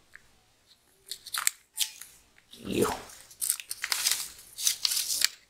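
Clear plastic packaging bag crinkling and rustling in several short, irregular bursts as an antenna is handled and taken out of it.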